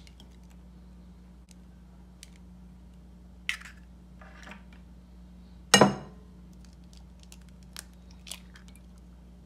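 Hen's eggs being cracked open by hand over a bowl: a few sharp knocks of shell, the loudest a little past halfway, with faint crackles as the shells are pulled apart.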